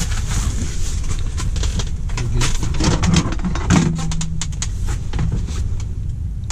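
Clicks, knocks and rattles of fishing gear being handled, as a fish-measuring board is pulled out and a walleye is laid on it. A steady low rumble runs underneath.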